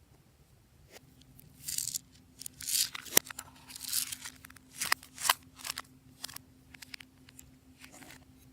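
Glossy slime being worked by hand: a run of clicks and crackly pops, loudest from about two to five seconds in, then thinning out.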